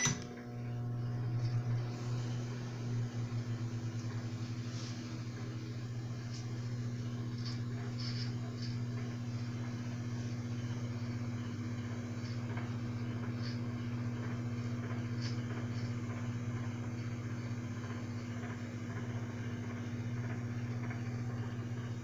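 Microwave oven switching on with a sharp click, then running with a steady low hum, with a few faint ticks. It has a newly replaced mica waveguide cover, and no loud sparking snaps are heard.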